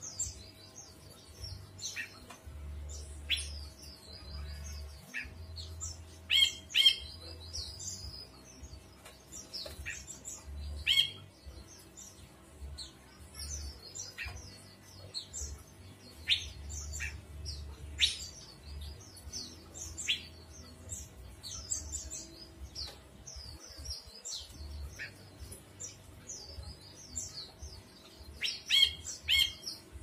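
Caged brinji kelabu (a bulbul) singing: a busy run of quick high chirps and sharp falling notes, louder about six seconds in and again near the end, over a faint steady hum.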